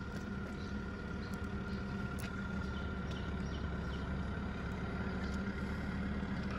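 A steady mechanical hum, like a motor running, with a few faint ticks over it.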